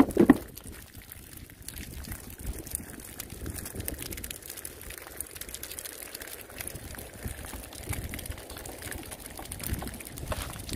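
Water trickling and dripping from a wet cast net full of small fish lying on concrete, with a light patter of small ticks throughout. A single thump right at the start.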